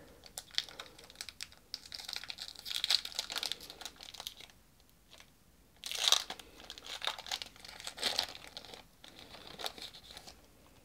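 Foil wrapper of a Pokémon trading card booster pack crinkling and tearing as it is opened, in several bursts of crackle.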